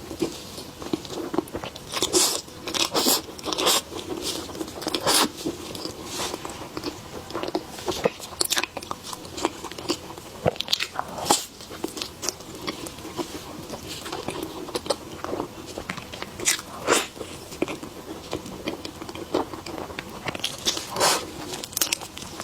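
A person eating close to the microphone: irregular crunchy bites and chewing, with sharp crackles among softer mouth sounds.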